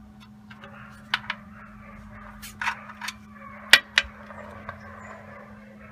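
Small, sharp metallic clicks and taps, the two loudest close together about four seconds in, as the oil drain plug is worked loose and pulled from a Honda GX390 engine. Under them is a soft, steady trickle as the engine oil starts to run out of the drain hole.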